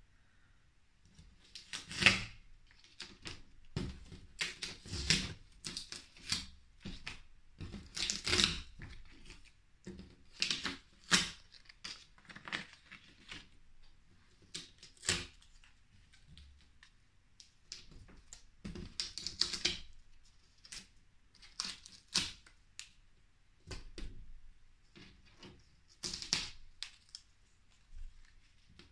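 Paper cut-outs being peeled off an easel's paper sheet and handled: irregular rustling and crinkling of paper in bursts with short pauses, with sharp little clicks.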